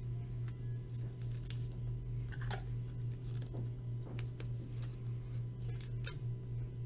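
Trading cards and a clear plastic card sleeve handled in the hands, giving scattered soft crinkles and clicks over a steady low hum.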